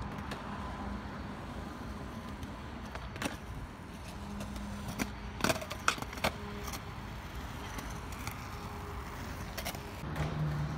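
Skateboard wheels rolling on rough asphalt, then a quick run of sharp clacks between about five and six and a half seconds in as the board is popped into a flip trick and strikes the pavement.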